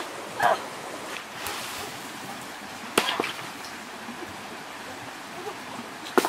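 Stream water running steadily, with a sharp knock about three seconds in and another near the end.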